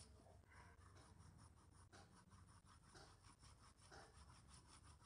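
Faint scratching of a pencil shading on sketchbook paper in quick, repeated back-and-forth strokes.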